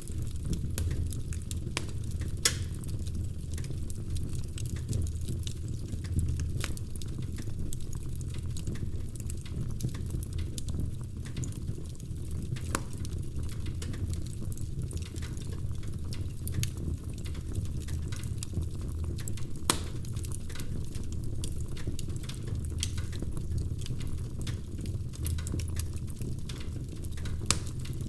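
Wood fire burning in a fireplace: a steady low rumble of flames with irregular sharp crackles and pops, a couple of them louder than the rest.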